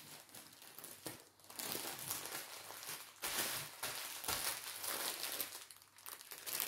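Packaging crinkling and rustling as it is handled, on and off in uneven spells.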